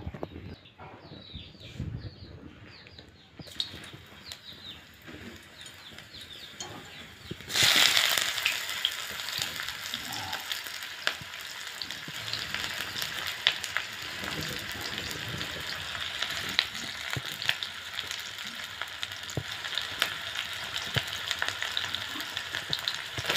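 Sliced onions hitting hot oil in an iron kadhai: the sizzle starts suddenly about a third of the way in and carries on as a steady fry with sharp crackles.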